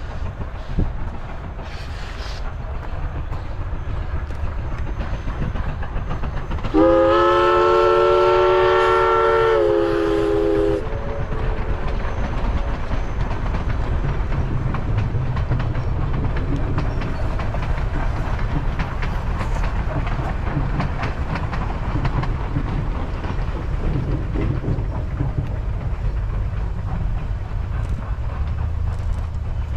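Steam train hauled by East Broad Top #16, a Baldwin 2-8-2 Mikado, running past with a steady low rumble and wheels clacking on the rails. About seven seconds in, the locomotive's steam whistle sounds one long blast of about four seconds, several pitches at once.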